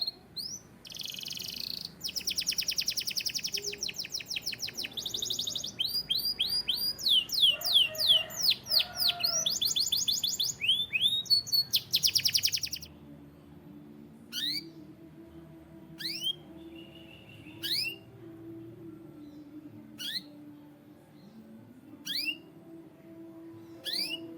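Canary singing: fast trills of rapidly repeated notes and runs of swept notes for about the first half, then the song stops and single short notes sweeping downward in pitch come about every two seconds.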